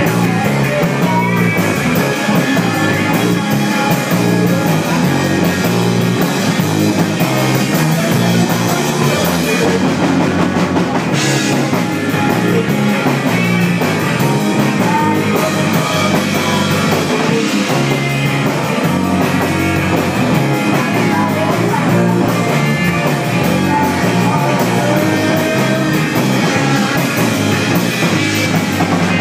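Live rock band playing at full volume, with electric guitar, electric bass and a drum kit.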